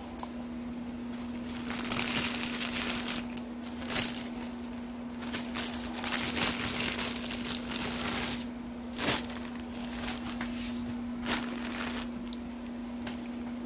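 Plastic bread bag crinkling and rustling as slices of white bread are pulled out, with a few clicks along the way. A steady low hum runs underneath.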